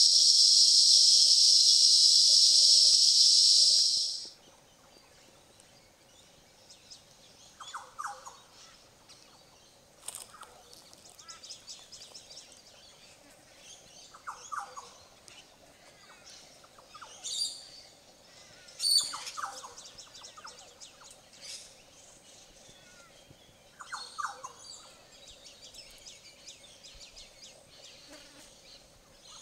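Rainforest insects droning loudly and steadily, cut off sharply about four seconds in. Then birds calling in a quiet forest: one low call repeated about every five seconds, with a few higher, sharper calls in between and a faint steady hum beneath.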